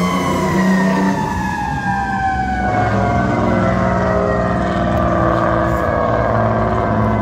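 Fire engine's siren winding down in a long, slow falling pitch as the truck pulls away, with the truck's engine running underneath.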